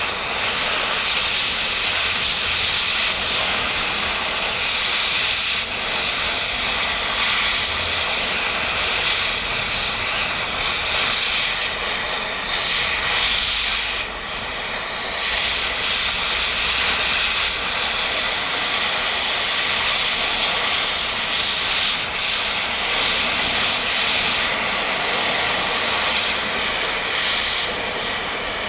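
Cutting torch hissing steadily as it cuts and washes old weld off a steel tractor lift arm, with a short dip about halfway through.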